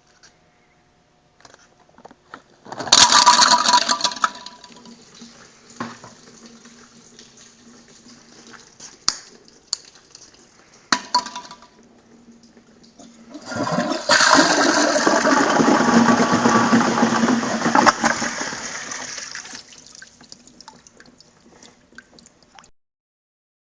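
Vortens Hurricane toilet flushing: a short loud rush of water about three seconds in, then, after a quieter stretch with a faint steady hum, a longer loud rush of water lasting about five seconds that tapers off and stops.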